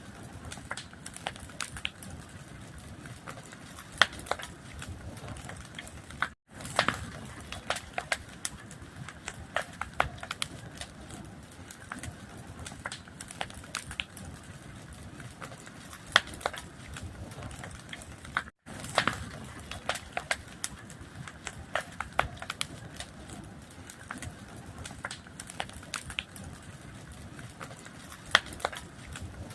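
Fire crackling: a steady hiss with frequent irregular sharp pops and snaps, broken twice by a split-second dropout, about six seconds in and again past the middle.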